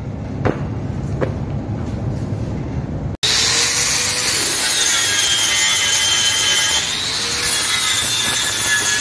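An angle grinder runs and grinds a heavy-wall steel pipe, its whine sagging and recovering as the disc bites. Before it starts there are a couple of light knocks.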